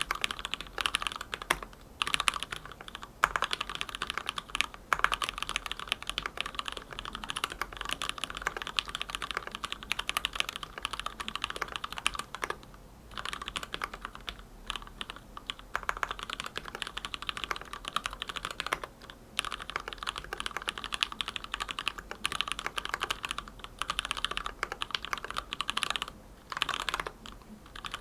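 Fast continuous typing on a mechanical keyboard with lubed Gateron Milky Black linear switches in a stacked acrylic case, giving a dense stream of keystroke clicks with a few brief pauses.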